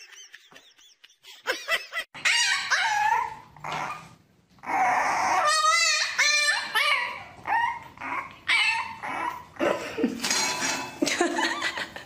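French bulldog puppy whining and yipping over and over in short cries that rise and fall in pitch, starting about two seconds in.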